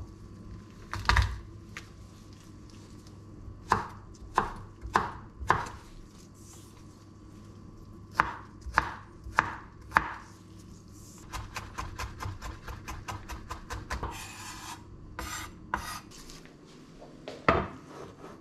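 Chef's knife chopping onion and garlic on a bamboo cutting board: single cuts in small groups, then a fast run of about seven chops a second. A short scrape across the board follows, and near the end a single heavier knock as a frying pan is set on the hob.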